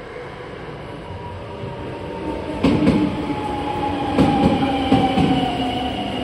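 JR West 225 series 5000 subseries electric train pulling out of the station, with a whine that slowly falls in pitch. From about two and a half seconds in, its wheels clack over the rail joints.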